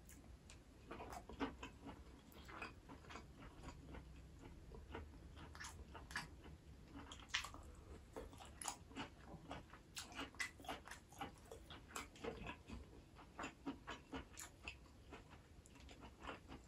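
Faint close-miked chewing of braised pork belly and green-onion kimchi: irregular small clicks of mouth and teeth, a few each second.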